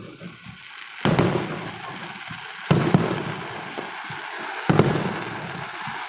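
Aerial fireworks shells bursting overhead: three loud bangs about two seconds apart, each fading out slowly.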